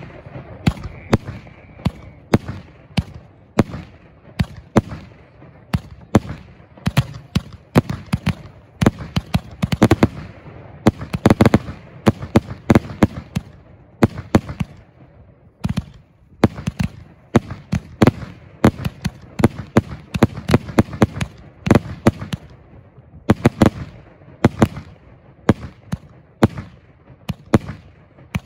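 A 66-shot 2-inch firework cake firing shell after shell. Each shot lifts off with a thump and bursts in a sharp bang, the shots coming one to two a second and bunching into a rapid volley near the middle.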